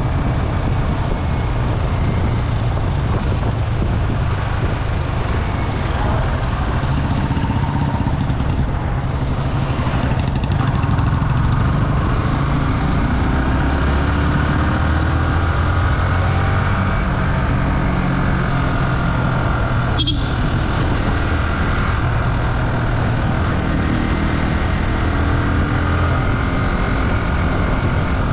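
Yamaha R15's single-cylinder engine running steadily under way at about 40 to 55 km/h, its pitch drifting slightly as road speed changes.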